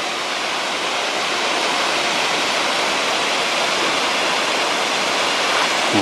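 A narrow mountain waterfall pouring down a rock face, a steady rush of falling water.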